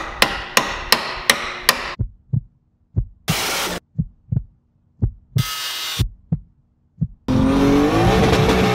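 Sound-designed intro sequence. About five quick, sharp hammer strikes on steel, then low thumps, some paired like a heartbeat, broken by two short bursts of hiss. Near the end comes a loud car engine sound whose pitch slides.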